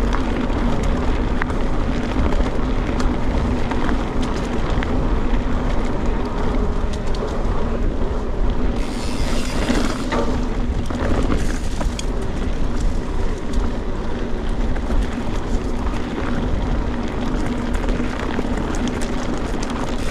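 Mountain bike on Maxxis Forekaster 29x2.20 tyres, run at lowered pressure, rolling fast over a rough, rocky trail: continuous tyre and ground noise with many sharp knocks and rattles from the bike, and wind on the microphone. A brighter rushing hiss swells about nine seconds in and fades a couple of seconds later.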